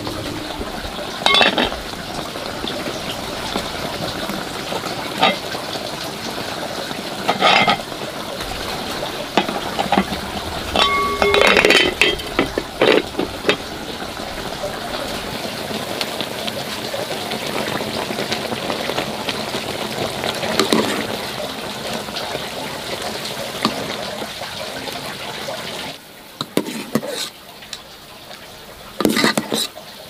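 A metal pot of greens boiling over a wood fire, with a steady bubbling hiss. Utensils knock and clink against the pot now and then, one clink ringing briefly. The hiss drops off a few seconds before the end, and a couple more clinks follow.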